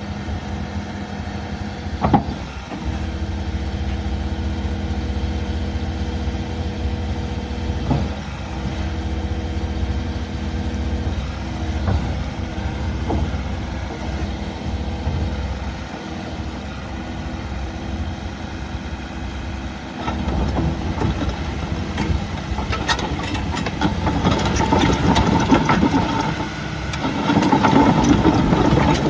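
Diesel engine of a John Deere 850K crawler dozer running at a steady idle, with a sharp clunk about two seconds in. It gets louder and rougher near the end.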